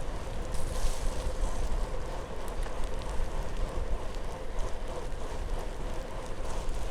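Wind buffeting the microphone of a bicycle ride in heavy rain, a steady low rumble with scattered small ticks of rain and a faint steady whine underneath.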